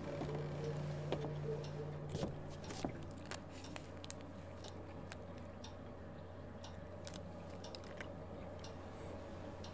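Faint steady low hum that drops to a lower pitch about two seconds in, with scattered small clicks and ticks.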